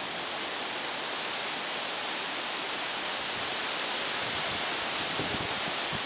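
Strong wind rushing steadily through the leafy trees, a dense hiss, with gusts buffeting the microphone in low, uneven rumbles from about four and a half seconds in.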